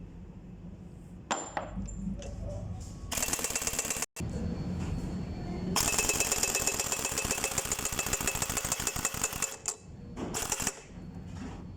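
Pneumatic impact wrench hammering in two bursts, a short one and then a longer one of several seconds, as bolts are loosened on a truck engine being stripped down.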